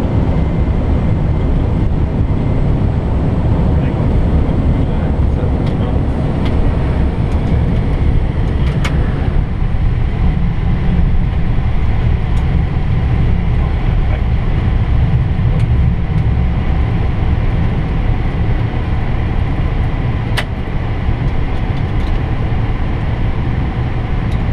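Steady low rumble inside an Airbus A320 cockpit on the landing roll: engine and runway noise as the airliner slows after touchdown. Two sharp clicks, about nine and twenty seconds in.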